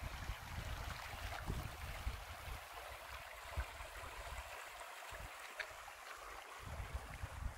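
Sespe Creek flowing: a steady, faint rush of creek water, with occasional low bumps.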